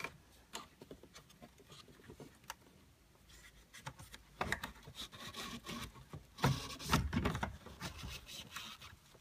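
Plastic instrument gauge cluster being worked loose from the dash by hand: scattered clicks, knocks and rubbing of plastic on plastic, loudest in a cluster about six and a half to seven seconds in.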